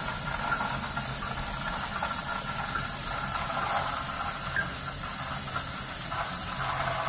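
Filthy water rushing steadily out of a boiler purge hose held under the surface in a bucket, bubbling as it comes. A hot-water heating zone is being purged of air and sludge, and only a little air is coming through now.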